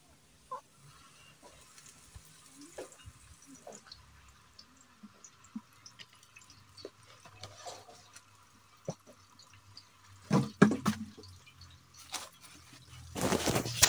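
Cooking oil trickling and dripping from a bottle into a metal pot, with faint scattered small clicks. A few louder knocks come about ten and a half seconds in, and a loud noisy burst starts near the end.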